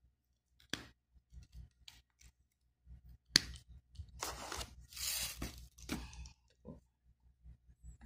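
Hands handling electrical wires and tools on a paper-covered work surface: a sharp click a little under a second in, a louder click at about three and a half seconds, then a couple of seconds of rustling and scraping with a few small clicks.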